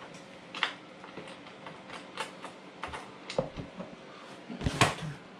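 Scattered light metallic clicks and taps of an aftermarket exhaust muffler and its mounting hardware being handled and fitted to an ATV, with a louder knock near the end, over a faint steady hum.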